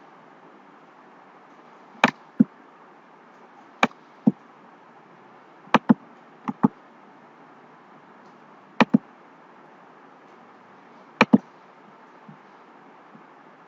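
Computer mouse button clicking: six pairs of sharp clicks spread a second or two apart, over a steady hiss from the recording microphone.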